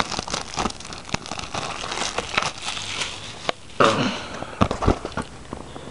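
Handling of a cardboard and plastic product box: scattered clicks and crinkling, with a louder rustle about four seconds in.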